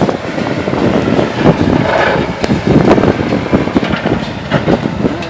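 Snowplow truck running as it plows the street, a loud rough rumble that surges and eases.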